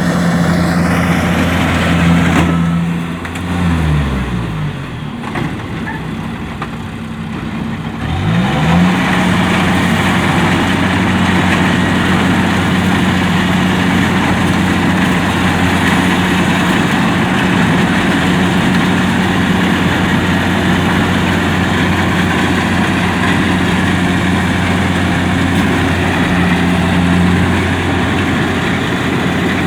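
Kubota DC-70 combine harvester's diesel engine running steadily at working speed. About two seconds in, its revs fall away and it runs slower and quieter for several seconds, then it revs back up about eight seconds in and runs steadily again.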